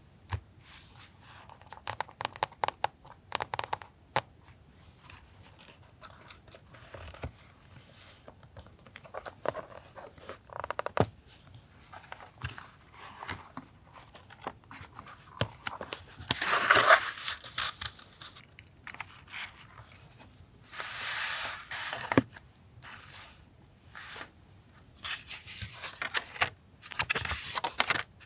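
Paper being handled for journal collage: rustling, scraping and tearing of paper and stickers, with light taps and clicks. There are several longer strokes of a second or two, the loudest just past the middle.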